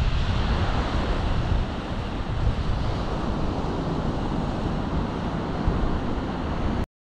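Rough Baltic Sea surf breaking on a sandy beach, with strong gusting wind buffeting the microphone in a low rumble. The sound cuts out for a moment near the end.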